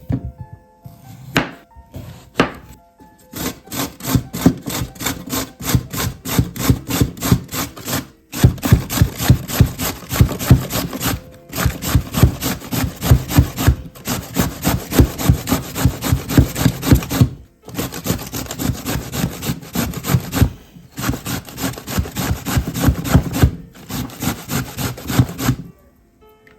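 Vegetables being grated by hand on a metal grater: rapid back-and-forth rasping strokes, several a second, in runs of about three seconds with brief pauses between them.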